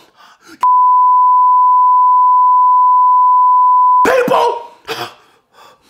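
A censor bleep: one loud, steady pure tone at about 1 kHz that cuts in abruptly about half a second in and stops abruptly after about three and a half seconds, blanking out the man's angry shouting.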